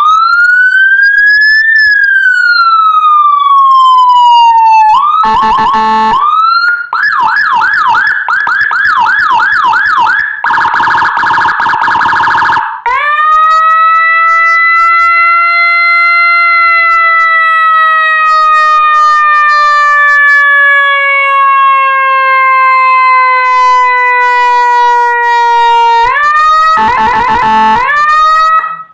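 Electronic police siren (a CJB 200 W siren module through a TOA horn speaker, set to Whelen HHS 3200 tones) cycling through its tones. It starts with a slow rise and fall, then goes to short choppy bursts, a fast warble of about three cycles a second, and a very rapid pulsing tone. A long wail follows that rises briefly and then falls slowly for about ten seconds. Rapid tones come back near the end and cut off suddenly.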